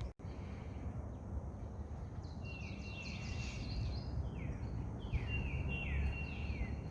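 A songbird singing two short phrases of quick downward-slurred notes, about two and a half seconds in and again about five seconds in, over a steady low background rumble.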